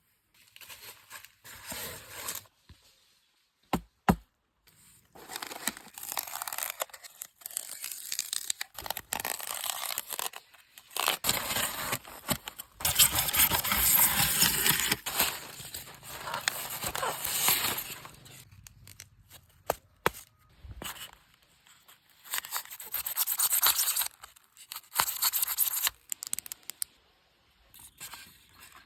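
Rustling, scraping and tearing of material being handled, in irregular bursts with short pauses between them; a couple of sharp clicks about four seconds in.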